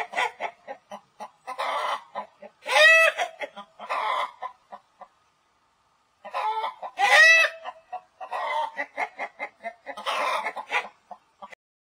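Chickens clucking and squawking in bursts, with two louder, shrill calls about three and seven seconds in and a short lull between them.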